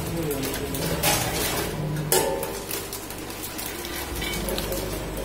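Small-pouch packing machine running: a steady low hum under a rapid, uneven clatter of filled pouches tumbling onto its stainless-steel chutes and hoppers.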